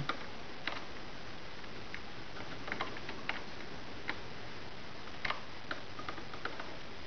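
Small screwdriver turning out a keyboard-retaining screw from a laptop's plastic case, giving faint, irregular small clicks and ticks.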